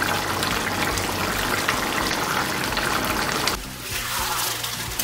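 Mutton in its marinade liquid sizzling and bubbling in a hot kadhai, the meat's released water boiling off as it fries. The sizzle drops and changes about three and a half seconds in.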